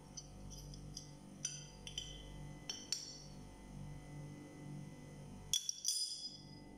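Light clinks of small glass or metal kitchenware, scattered through the first three seconds, then a louder quick cluster about five and a half seconds in, over faint background music.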